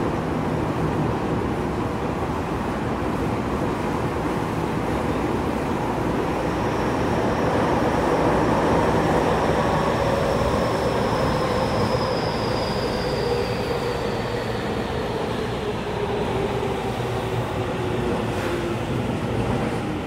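Interior running noise of a Tokyu 5080 series subway train: a steady rumble of wheels on rail. From about a third of the way in, a high whine and a lower hum both fall slowly in pitch as the train slows for the next station.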